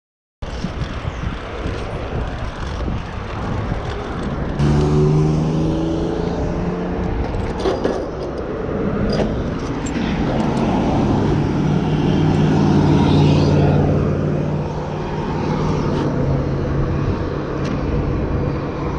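Road traffic: a motor vehicle's engine running close by, its steady hum strongest about a quarter of the way in and again in the second half, over a constant wind rumble on the microphone.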